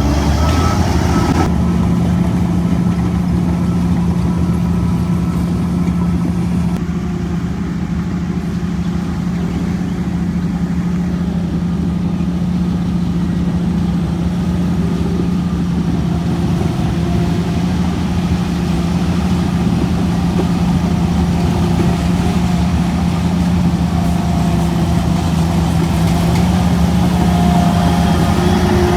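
Shantui DH17C3 bulldozer's diesel engine running steadily with a constant low drone.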